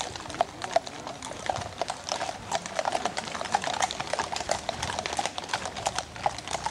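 Hooves of a string of horses walking on a paved lane: many overlapping, irregular clip-clops.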